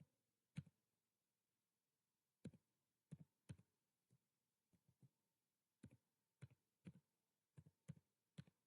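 Faint, unevenly spaced clicks from a computer's keys and mouse, about a dozen in all, over near silence.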